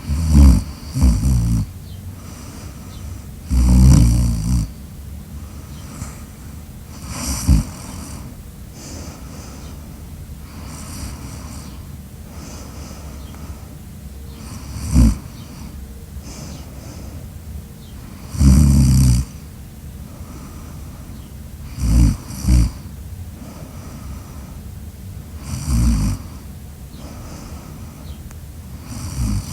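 Loud snoring: about ten harsh snores at irregular intervals of a few seconds, some in quick pairs, over a steady low background noise.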